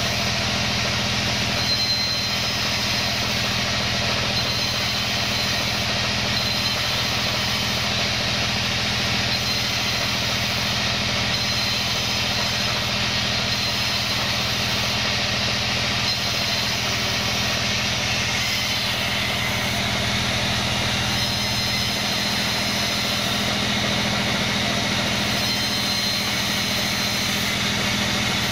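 Vertical band saw running steadily while it rips wooden boards into long strips, a constant machine hum under the noise of the blade cutting.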